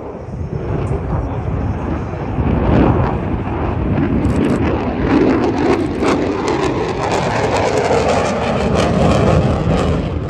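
Jet noise from an F-35A Lightning II's single Pratt & Whitney F135 turbofan as the fighter flies past in a display turn. It swells about two seconds in and stays loud, with a ragged crackle from about four seconds in.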